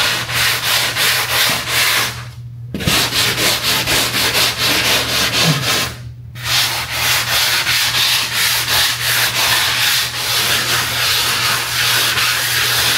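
Drywall being sanded by hand with a sanding block, quick back-and-forth rubbing strokes at about four to five a second, smoothing patched joint compound in a wall corner before painting. The strokes stop briefly twice, about two and a half and six seconds in, over a steady low hum.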